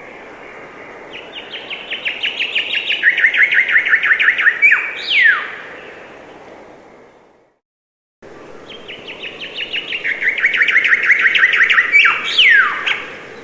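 A songbird singing two phrases. Each is a run of quick repeated notes that speeds up and steps down in pitch, ending in a sweeping downward note. Between them the sound fades out to silence and then cuts back in abruptly.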